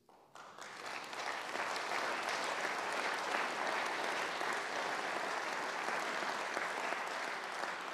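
Audience applauding, starting just after the beginning, building over about a second and then holding steady.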